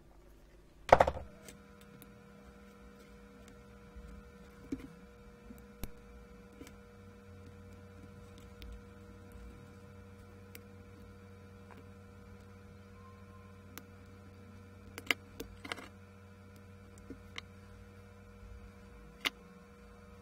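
A sharp click about a second in, then a faint steady electrical hum with a few light clicks and taps scattered through: small parts of a pulse oximeter's plastic finger probe being handled and worked apart.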